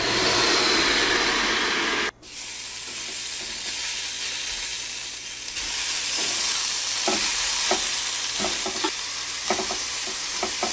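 A steady rushing noise with a low hum cuts off abruptly about two seconds in. After it comes the sizzle of raw marinated chicken thighs being laid on the Ninja Foodi Grill's grill grate, preheated on high to 500 °F, with light clicks of the tongs against the grate from about seven seconds in.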